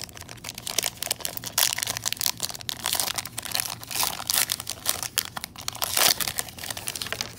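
Foil wrapper of a Pokémon Sword and Shield Brilliant Stars booster pack crinkling and tearing as it is ripped open by hand, a dense irregular crackle.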